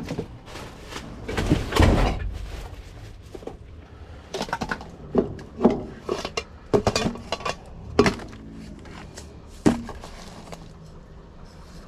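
Assorted junk clattering and knocking as a dumpster's contents are rummaged through by hand: an irregular series of sharp knocks and rattles, the loudest about two, five and a half, eight and ten seconds in.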